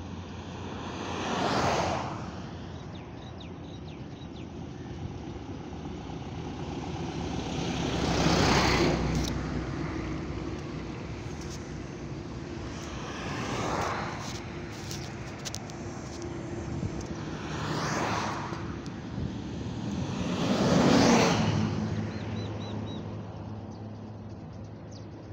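Highway traffic: five vehicles pass close by one after another, each a swell of tyre and engine noise that rises and fades. The loudest passes come about eight and twenty-one seconds in, over a steady low traffic hum.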